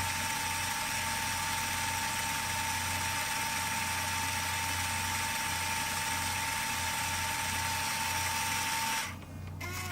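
Steady engine and road noise inside a U-Haul truck's cab, with a low hum and a thin steady whine, cutting off about nine seconds in.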